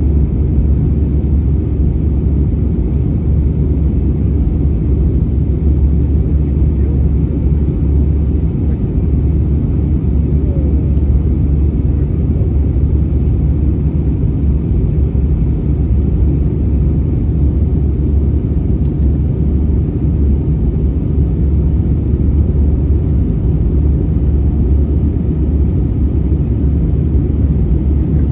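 Steady low rumble inside the passenger cabin of an Airbus A319-100 in flight: engine and rushing-air noise, unchanging throughout.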